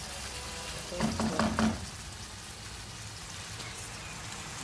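Thick tomato sauce sizzling steadily as it fries down in a pan. A wooden spatula scrapes and knocks against the pan in a short flurry about a second in.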